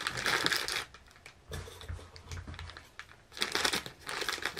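Clear plastic bag crinkling in the hands in two bouts, with a quieter stretch between them, as the bag is handled and then cut open with scissors near the end.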